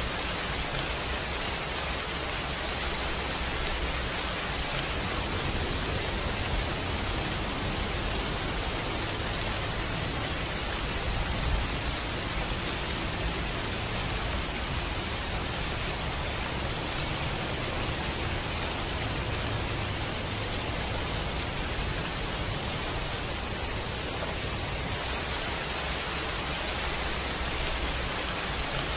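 Steady rain: an even, unbroken hiss of falling rain.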